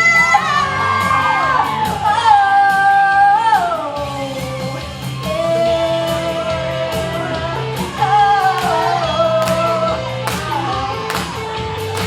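A singer holding long sustained notes over a pop backing track with a steady beat and bass.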